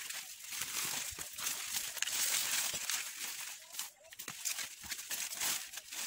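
Dry corn leaves and stalks rustling and crackling as someone pushes through the rows on foot, with a brief lull about four seconds in.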